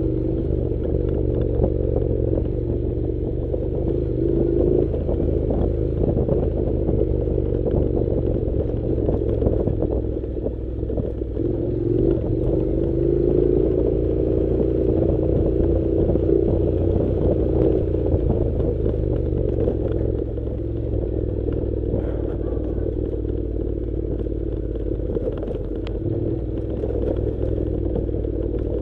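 Honda NC700 motorcycle's parallel-twin engine running at low road speed on a dirt track, its pitch rising and falling with the throttle and climbing around the middle. The bike clatters and rattles over the rough, stony surface.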